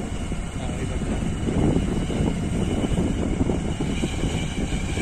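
Steady wind rush and road rumble from riding along a road in an open vehicle, with its engine running underneath.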